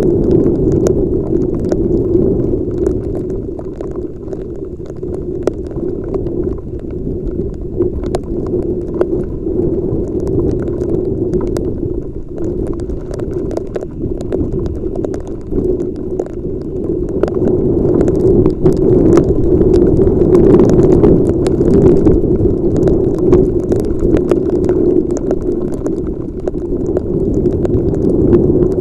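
Muffled, continuous rumble of wind and rain on a helmet-mounted camera's microphone while riding in heavy rain, with many short clicks of raindrops striking it; it grows louder about two-thirds of the way through.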